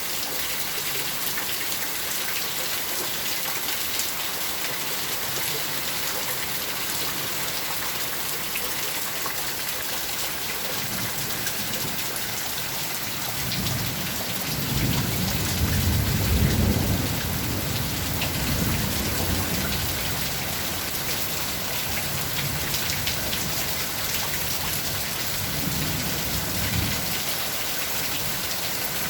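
Steady rain falling, a continuous even patter. About halfway through, a low rumble of thunder builds, peaks and fades over several seconds, and a shorter, weaker rumble comes near the end.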